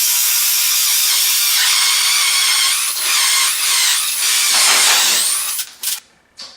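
Power drill spinning a hole saw as it cuts into a solid-core wooden door, a steady high-pitched cutting whine that dips briefly a couple of times and stops about six seconds in.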